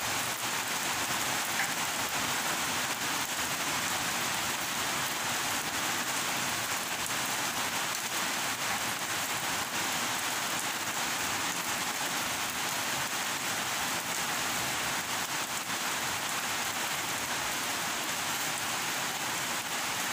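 Heavy rain falling, a steady hiss.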